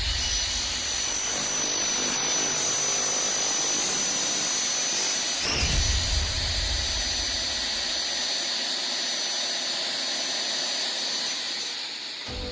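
Double-head aluminium cutting saw running: a steady high whine over a hiss, with a lower rumble at the start and again about six seconds in.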